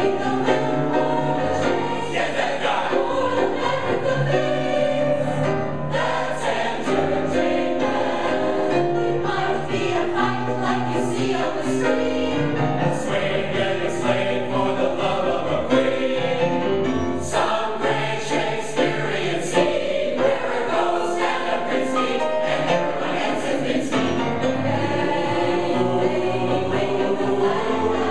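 Large mixed choir of men and women singing together in chorus, holding sung notes with crisp consonants.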